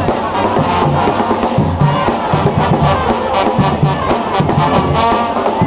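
Street brass band playing: horns such as trumpets and trombones over a steady drum beat.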